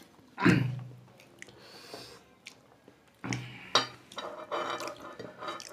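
A man's short wordless vocal sounds, one louder one about half a second in and a string of brief murmurs from about three seconds on, mixed with mouth noises of eating.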